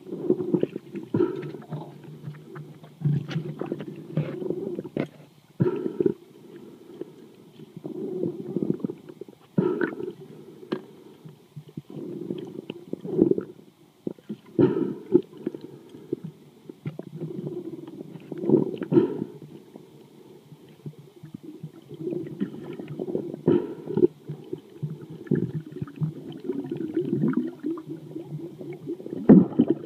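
Muffled underwater sound recorded through a waterproof phone housing: low, uneven rumbling and gurgling of moving water, broken by frequent irregular knocks and clicks.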